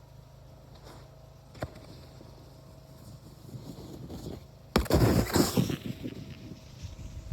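Snowboard sliding over packed snow, then a sudden hard thump about five seconds in, followed by about a second of loud scraping and crunching that trails off, typical of a board landing and skidding.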